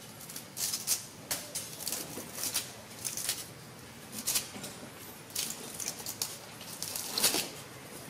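A baby monkey gnawing and tearing at the dry, fibrous husk of a coconut: irregular scratchy rasps and crunches, several a second, with the loudest near the end.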